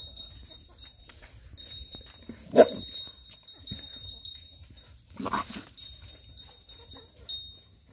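A dog gives two short vocal sounds, the louder about two and a half seconds in and another about five seconds in.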